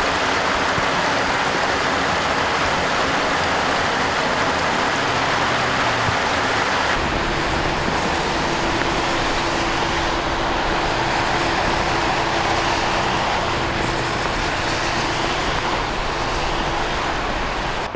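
Rainwater runoff pouring into a street storm drain, a loud steady rush of water. About seven seconds in it changes to a lower, steadier rush of heavy rain and traffic on a flooded freeway, with a faint steady hum.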